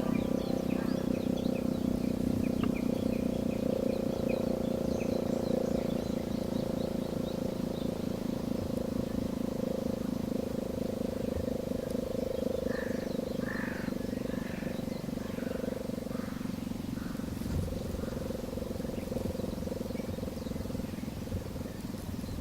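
Disaster-prevention radio siren over outdoor public-address loudspeakers, sounding a long, steady low tone for a monthly test. Its level sinks slowly as it goes on.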